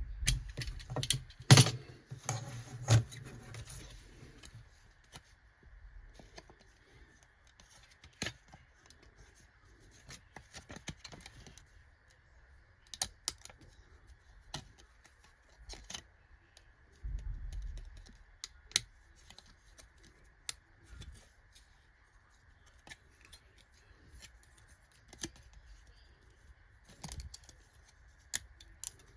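Irregular light clicks and taps of small metal parts being handled and worked by hand, with a few louder knocks in the first three seconds. A faint steady whine runs underneath.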